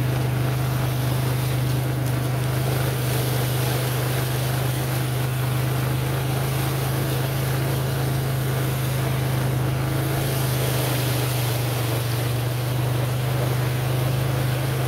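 ATV engine running at a steady speed, a constant low drone, over a steady rushing noise of wind and the ride.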